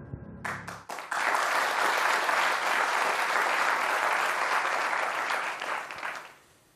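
Studio audience applauding. The clapping starts about a second in as a held musical tone cuts off, stays steady, and fades out near the end.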